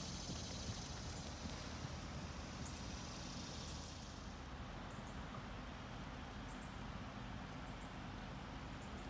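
A horse's hoofbeats on soft arena sand at trot and canter, soft and muffled, over a steady hiss of outdoor background noise. The higher hiss drops away about four seconds in.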